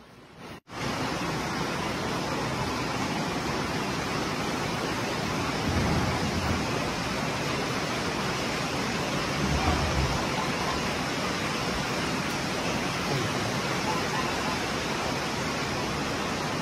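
A steady rushing hiss that starts about a second in and holds evenly, with a few low swells around six and ten seconds.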